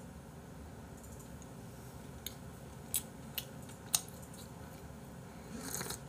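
Quiet eating and drinking sounds: a few faint sharp clicks, then a short slurping sip from a mug near the end.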